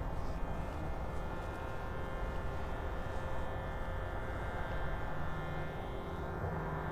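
Shruti box droning: several reed tones held steadily together, growing a little stronger near the end, over a low rumble.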